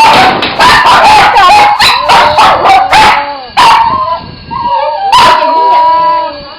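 Cats fighting: loud wavering yowls and screeches, broken by sharp hissing spits, with one long drawn-out yowl about five seconds in.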